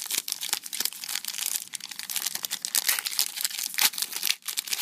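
Trading-card pack wrapper crinkling and tearing as it is worked open by hand, a dense stream of fine crackles with a brief pause near the end; the pack is hard to open.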